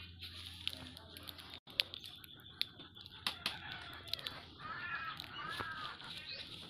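Light knocks, clicks and rustling as a hand handles finished brooms with plastic- and tape-wrapped handles. In the second half a bird calls several times in short calls.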